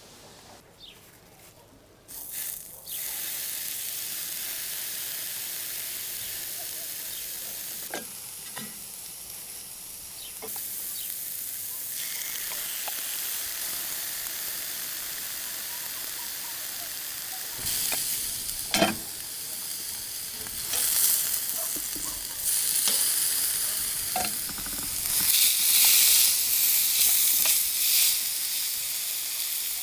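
Beef steak sizzling on a hot charcoal iron. The sizzle starts about two seconds in and grows louder near the end, with a few clicks and knocks, the sharpest a little past halfway.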